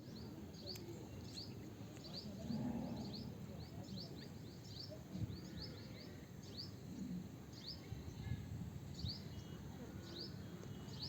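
Small birds chirping: many short, quick down-sweeping chirps, repeated irregularly throughout, over a steady low background rumble.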